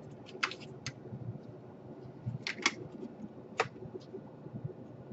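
Laptop plastic casing parts being handled and fitted, making about half a dozen sharp clicks and taps at irregular intervals.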